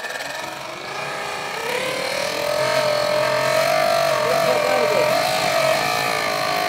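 Toy jet engine model spun by a high-speed electric motor, giving a whine that rises in pitch over the first two seconds and then holds, wavering slightly later on.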